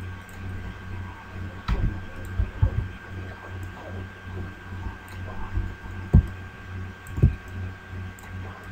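Steady low hum with a thin, steady high whine above it, broken by a few dull low thumps, about four, spread through the middle. Faint light ticks come through now and then.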